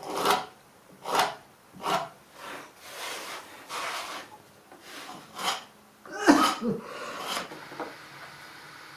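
A steel chisel scraping and paring the bottom of a plywood dado in short strokes, about one a second, the loudest a little after six seconds.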